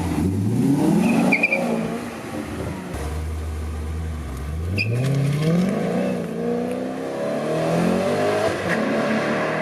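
Maserati GranSport's V8 engine revving up three times, its pitch climbing each time, with a steady lower engine note between the first two climbs.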